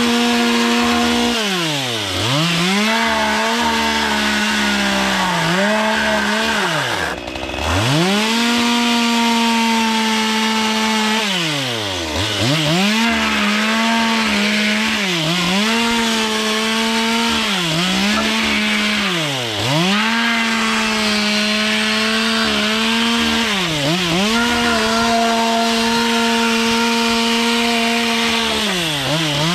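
Small chainsaw running at high revs while cutting into the ends of fir boards to rough up their texture. Its engine pitch sags and climbs back about eight times as the chain bites into the wood and the throttle is eased. About seven seconds in it briefly drops nearly to idle.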